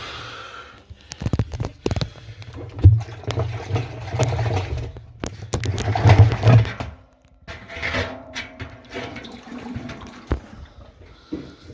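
Water rushing and splashing, with repeated knocks and clatters as washing-machine parts are handled.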